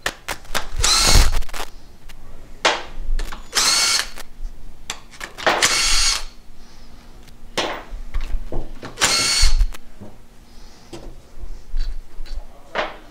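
Makita cordless drill-driver whirring in four short bursts, each under a second, as it spins out the pump head's bolts with a socket, with small clicks and knocks of handling between bursts.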